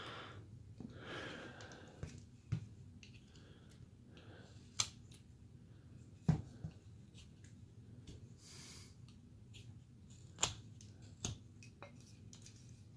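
Carving knife cutting into basswood: soft slicing and scraping with several sharp, separate clicks as the blade bites through the wood.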